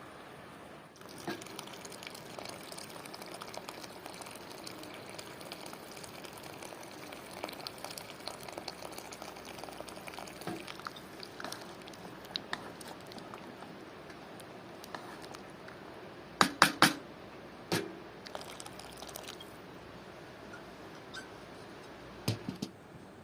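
Steady watery liquid sound from stew cooking, dotted with small clicks, with a quick cluster of three sharp knocks about two-thirds of the way through, another soon after, and two more near the end.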